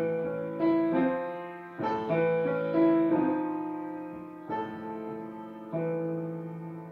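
Upright piano played solo: slow chords and melody notes, each struck and left to ring and fade away before the next.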